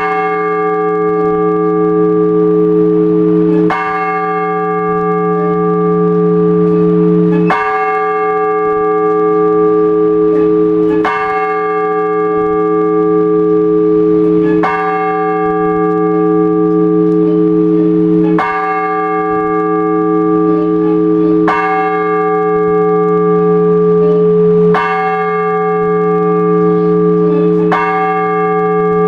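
A single large Orthodox church bell struck slowly and evenly, about every three and a half seconds, nine strokes in all, each ringing on until the next. This is the measured tolling that calls people to the all-night vigil.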